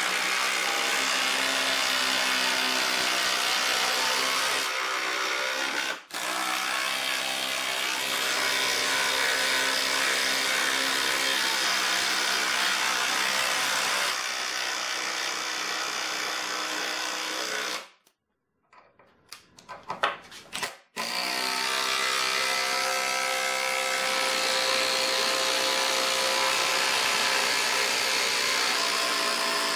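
Two cordless brushless impact drivers, a Ryobi and a Dewalt DCF887, hammering together as they drive 5/8-inch lag bolts into stacked lumber. About eighteen seconds in they stop for a few seconds, with a few clicks, and then resume hammering.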